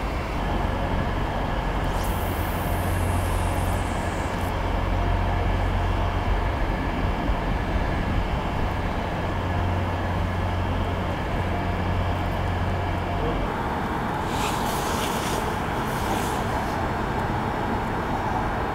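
Steady low rumble of road traffic from the surrounding town and bridges. A short falling hiss comes about two seconds in, and another brief hiss follows a few seconds before the end.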